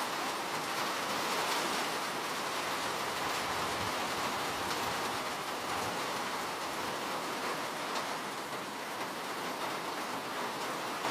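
Steady rain falling, an even hiss that holds at a constant level.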